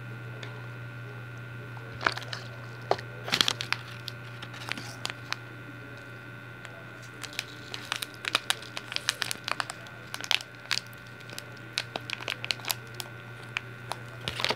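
Glitter-covered slime being worked by hand, giving scattered sharp clicks and crackles that start about two seconds in, over a steady low electrical hum.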